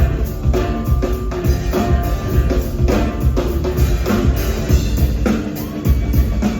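Live band playing an instrumental passage, with a drum kit striking a steady beat over a deep bass line.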